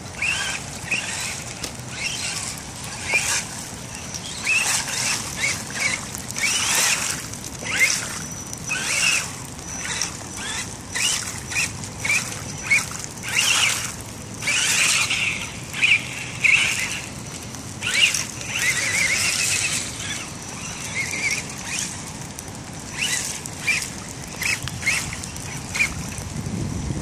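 Axial RC crawler truck's electric motor and gears whining in many short, irregular bursts as the throttle is worked, its tyres spinning and churning through wet mud.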